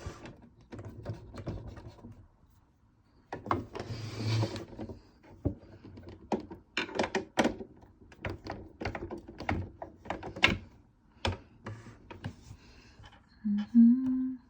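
Clicks, taps and knocks of a screwdriver, screws and plastic casing parts being handled while a sewing machine's cover is fitted back on, with a short scrape about four seconds in.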